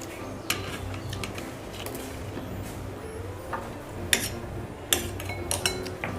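A spoon clinking against plates and bowls: scattered sharp clinks, the loudest about four and five seconds in.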